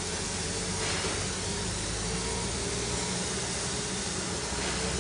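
A standing C11 steam tank locomotive hissing steadily, with a low hum underneath and brief stronger bursts of hiss about a second in and again near the end.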